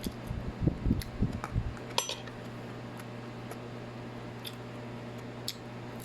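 Cutlery knocking and clinking against a plate while eating: low bumps in the first second or so, one sharp ringing clink about two seconds in, then a few faint ticks. A steady low hum runs underneath.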